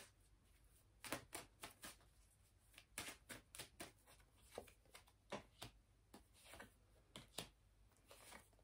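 Tarot cards being shuffled and handled: quiet, irregular flicks and taps coming in small clusters.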